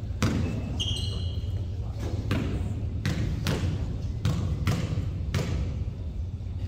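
Basketball bouncing several times at an uneven pace, with sneakers squeaking on the court about a second in.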